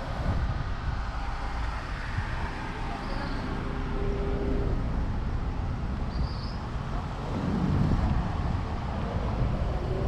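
Street traffic ambience: a steady low rumble of vehicle and road noise, swelling a little near eight seconds in.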